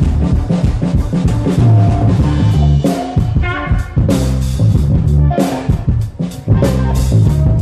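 Live blues-rock band playing: drum kit, bass and electric guitar, recorded loud in a tent.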